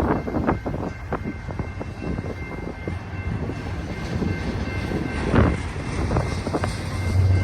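Diesel-hauled stack train passing: wheels clattering over the rails under a steady low rumble, with a faint steady high whine and one louder knock about five seconds in.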